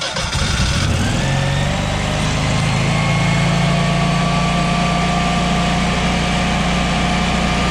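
Propane-fuelled Generac Guardian Series standby generator engine starting on a new battery: the last of the electric-starter cranking, the engine catching about a second in and rising quickly to speed, then running steadily. The quick start shows the new battery is strong enough to crank it.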